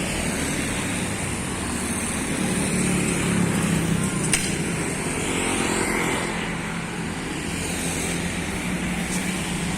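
Street traffic: a steady wash of vehicle engines and tyre noise, with one vehicle's engine hum swelling and fading past in the middle. A single sharp click a little past the middle.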